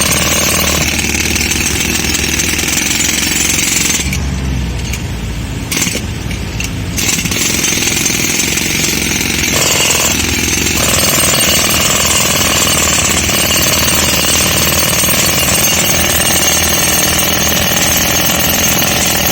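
Pneumatic jackhammer, run off an air compressor, breaking concrete in a loud, continuous rattle. The high rattle thins out for a few seconds about four seconds in, then comes back at full strength.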